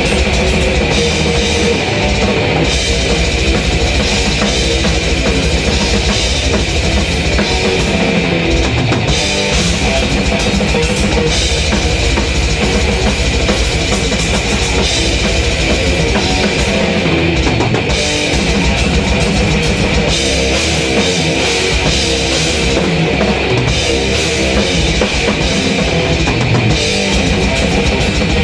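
Drum kit played live in a heavy metal song, with a very fast, unbroken run of kick-drum strokes under cymbals and distorted guitar.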